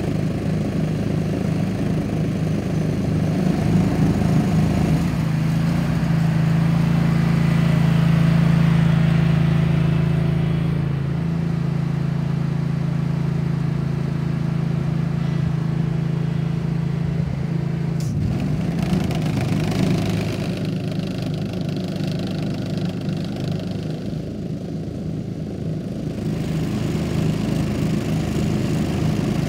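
Toro ProCore 648 walk-behind aerator's engine running steadily as it drives its tines into the turf. For several seconds in the middle the hum grows fuller and steadier, then changes abruptly with a brief click about two-thirds of the way through.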